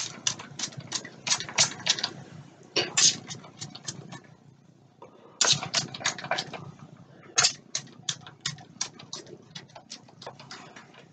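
Trigger spray bottle of homemade detangler pumped again and again at the hair, each spray a short hiss, in quick runs of several sprays a second with brief pauses between. The bottle is nearly empty.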